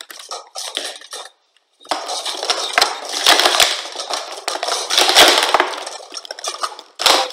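Plastic sport-stacking cups clattering as they are rapidly stacked up and brought down on a stacking mat. A few short bursts come in the first second or so, then a dense run of clacking from about two seconds in to nearly the end, and one last sharp burst.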